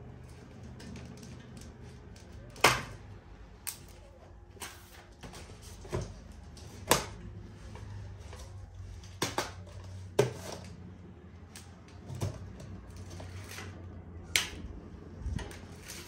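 Irregular sharp clicks and knocks as the parts and packing of a boxed bike are handled and pulled apart, a dozen or so hits at uneven intervals, over a low steady hum.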